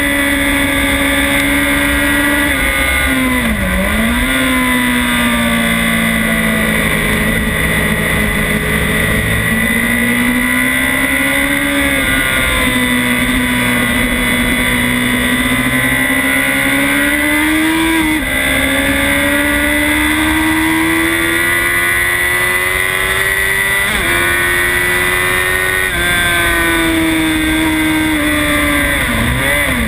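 Honda CBR1000RR's inline-four engine running hard, heard from an onboard camera at track speed. The engine note climbs slowly in long pulls, dips sharply and climbs back about four seconds in and again near the end, with a few small jumps in pitch along the way. Constant rush of wind noise underneath.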